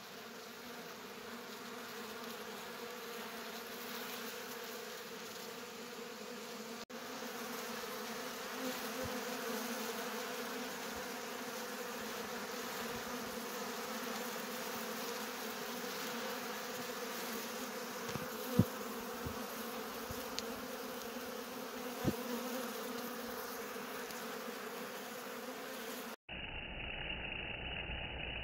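Many honeybees buzzing in a steady hum at a wooden hive entrance, robber bees among them trying to get into the hive. Two sharp taps stand out in the second half, and shortly before the end the hum turns duller.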